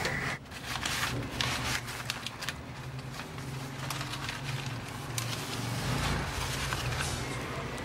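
Hands working inside a wooden bird cage: paper rustling and many small clicks and scrapes against the cage bars and fittings, over a steady low hum.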